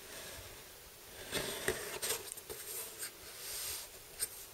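Cardboard board-game box and paper rules sheet being handled: rustling and sliding with a few light clicks and taps, starting about a second in.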